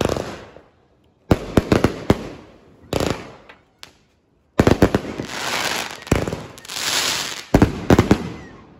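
Fireworks going off in quick clusters of sharp bangs, with a long crackling hiss in the second half.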